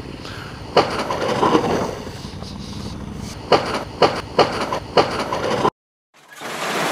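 Motorcycle engine running steadily, with several sharp knocks about a second in and again in the latter half. Near the end the sound drops out briefly, then a loud rush of noise swells up.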